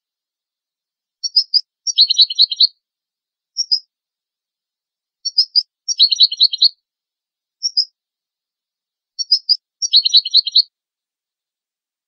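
European goldfinch song, the phrase keepers call a tebnita, on a clean recording with no background. A few short high chirps lead into a fast, rattling trill. The same phrase comes three times, about every four seconds, with a lone chirp between each.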